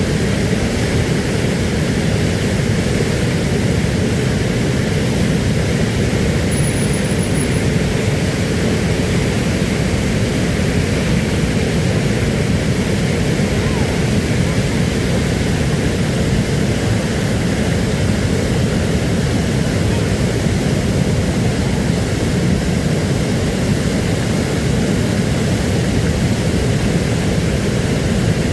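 Floodwater rushing in a steady, loud, unbroken wash of noise, the flow swollen by surplus water released from the dams.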